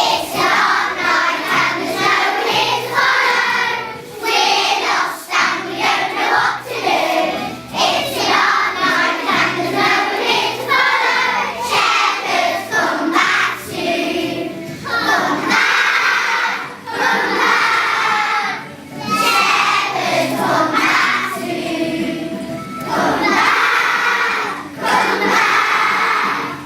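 Group singing with music: several voices sing a song in phrases of a second or two, with short breaks between phrases.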